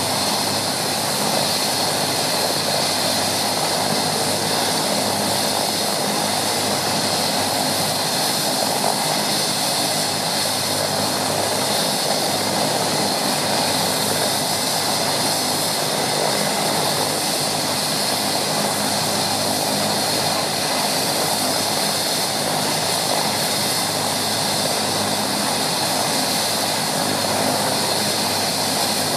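Bell 427 helicopter's twin turboshaft engines and main rotor running steadily on the ground before takeoff, a steady turbine whine over rotor noise.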